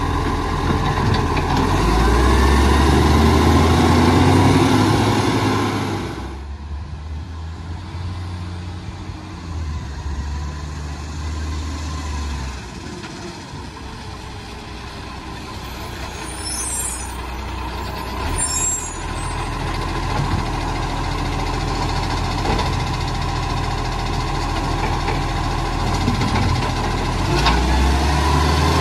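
Iveco Acco side-loader garbage truck's diesel engine running, louder and rising in pitch as the truck pulls away during the first few seconds. It then runs quieter and builds again near the end as the truck comes up to the bins, with a couple of brief high sounds in the middle.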